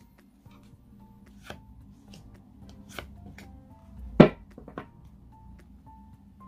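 Tarot cards being drawn from the deck and laid down on the table: a few sharp card snaps and taps, the loudest about four seconds in, over soft background music.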